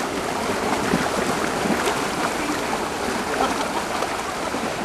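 Fast-flowing floodwater rushing steadily, with light splashing from a herd of cows wading through it.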